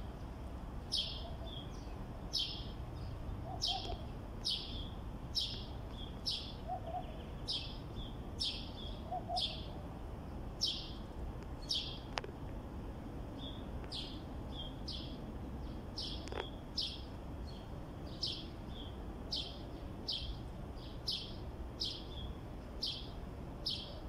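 A small bird chirping over and over: short, sharp, high notes a little more than once a second, with a few faint lower notes in the first ten seconds.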